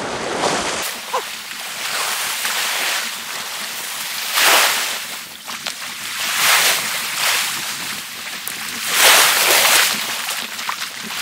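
Sea waves washing onto a rocky shore, surging and falling back in several swells, the loudest near the end.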